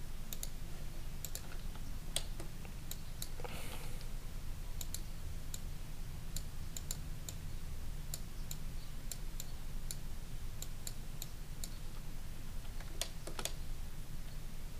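Scattered, irregular clicks of a computer mouse and keyboard, over a steady low hum.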